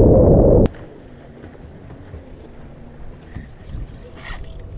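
Heavy wind buffeting the microphone on an open fishing boat, cutting off abruptly under a second in. It gives way to much quieter boat-on-the-water background with a faint low hum and a few light knocks.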